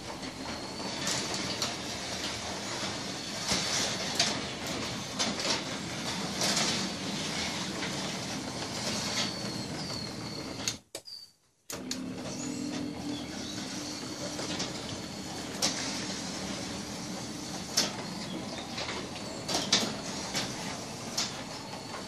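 Sommer Synoris 550 garage door opener running quietly, raising a new Raynor sectional door, then lowering it after a brief gap about eleven seconds in. Birds chirp outside throughout, heard over the opener.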